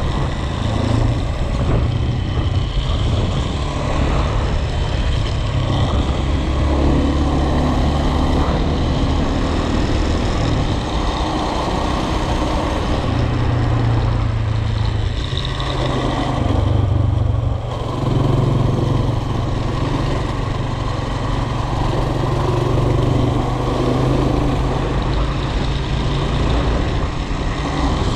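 Motor vehicle on the move: steady engine and road noise with a strong low rumble that rises and eases now and then.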